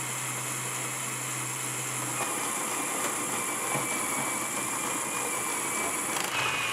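LEGO Technic machine running: a single XL motor turning gear trains and clutches through a mechanical gearbox, giving a steady whir. About two seconds in, the low hum drops away and a thin high whine starts and holds.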